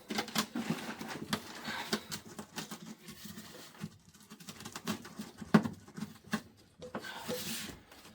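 Irregular small clicks, taps and scrapes of plastic pipe and fittings being handled, with one louder knock about five and a half seconds in.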